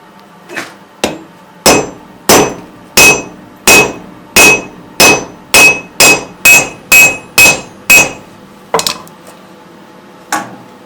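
Hand hammer striking hot steel on an anvil: a steady run of about a dozen blows, each with a bright ring, coming a little faster before they stop, followed by two lighter single strikes near the end.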